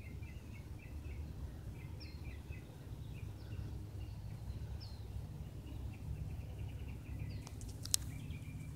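Small birds chirping in quick repeated bursts, with a few sharper higher call notes, over a steady low rumble. A sharp click sounds near the end.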